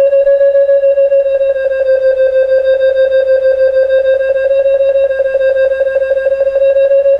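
Tasman V1000 glider variometer's audio climb tone: a steady pitched beeping at about eight beeps a second, signalling lift as the instrument reads a climb of 2 to 3 units.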